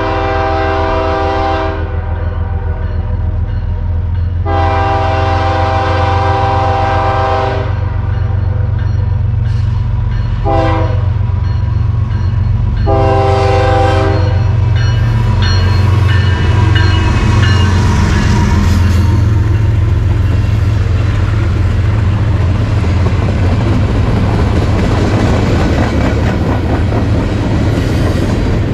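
Early Nathan Airchime K5HL five-chime air horn on a BNSF diesel locomotive sounding the grade-crossing pattern: the end of one long blast, then a long blast, a short one and a final long one, over the steady rumble of the diesel engine. The locomotive then passes close, and empty flatcars roll by with wheel clatter on the rails.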